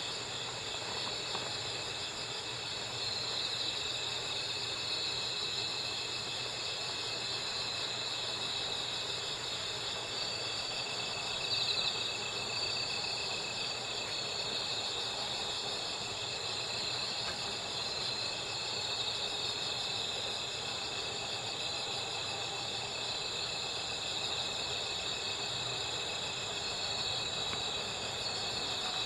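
Crickets (Gryllidae) singing continuously at night, a steady high-pitched trilling at several pitches at once.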